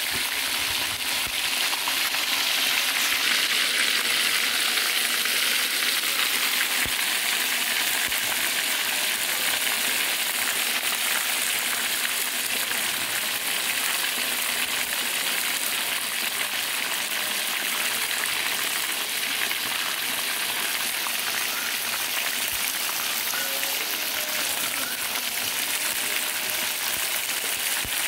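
Chicken pieces sizzling steadily as they deep-fry in hot oil in a wok, slightly louder in the first several seconds.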